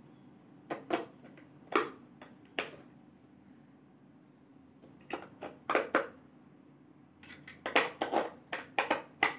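Batteries being fitted into a plastic toy computer's battery compartment: scattered clicks and taps of batteries against plastic, a few single ones at first, then quick little runs of them in the second half.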